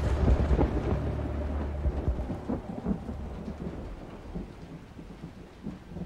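Thunder rumbling, loudest at the start and dying away over the first two or three seconds, over steady rain.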